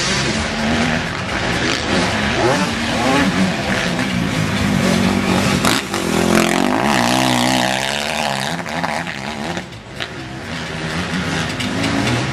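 Motocross bikes' engines revving as they race past on a dirt track, one bike passing close about six seconds in, its pitch wavering up and down as the rider works the throttle.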